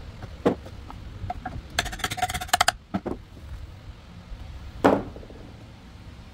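Pliers biting on and pulling a small rusty nail out of a wooden drawer front: a sharp click, then a rapid rattling creak for about a second as the nail works out of the wood, followed by a couple of light knocks and one louder clack near the end.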